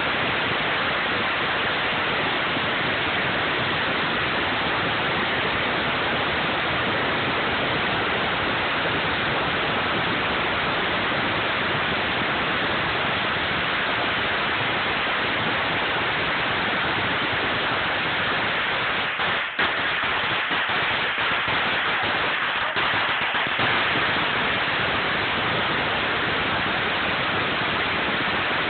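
A huge string of firecrackers going off in a dense, unbroken crackle, with a momentary drop about two-thirds of the way through.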